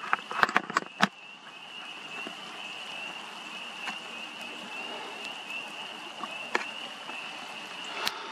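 A chorus of frogs trilling steadily and without a break. There are a few sharp clicks in the first second and a couple more near the end.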